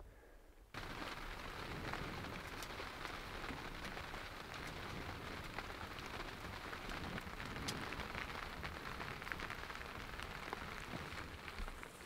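Steady rain falling, a dense run of small drop taps over an even hiss, starting just under a second in.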